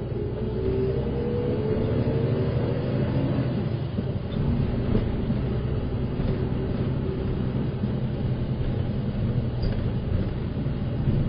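City bus's diesel engine and drivetrain running while the bus drives, heard from inside the passenger cabin, with a rising whine in the first few seconds as it picks up speed.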